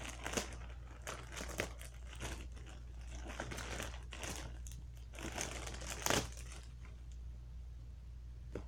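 Packaging rustling and crinkling as a package is opened by hand, with several sharp crackles; it dies down about seven seconds in.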